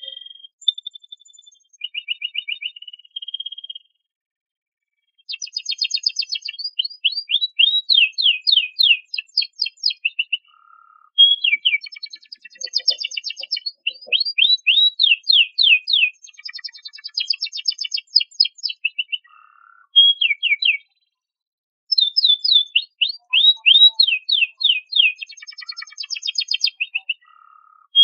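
Domestic canary singing: high-pitched phrases of fast repeated notes and rolling trills, broken by brief pauses, including a full stop of about a second and a half near the start and another later on.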